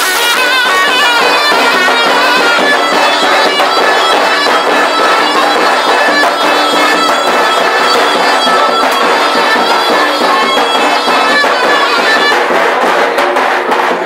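Zurna and davul playing a horon dance tune: the zurna's reedy melody runs on without a break over the drum, with a few sharp drum strokes near the end.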